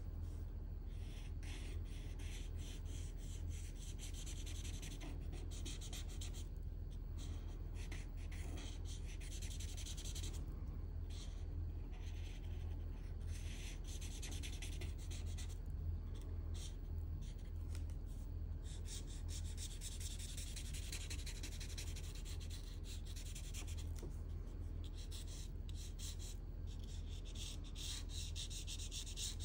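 Alcohol marker's felt nib rubbing across drawing paper in repeated shading strokes, in stretches with short pauses between, over a steady low hum.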